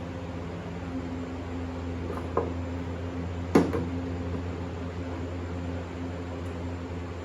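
A steady low hum with two short, sharp knocks about a second apart, the second one louder.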